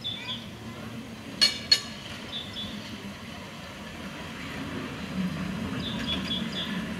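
Double-deck electric tram running toward the listener on its rails, a low rumble that grows louder from about five seconds in. Two sharp clicks come close together about a second and a half in, and birds chirp now and then.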